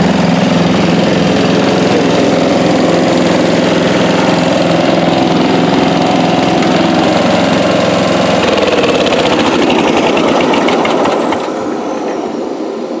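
A 1983 Bolens G11 LT lawn tractor's 11 hp Briggs & Stratton single-cylinder engine, built up with raised compression and a different cam, running steadily. About eight seconds in it is throttled down, its pitch falling, and it winds down as it is shut off near the end.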